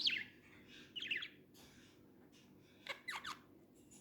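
Pet budgerigar chirping: three short bursts of quick, falling high-pitched chirps, at the start, about a second in, and about three seconds in.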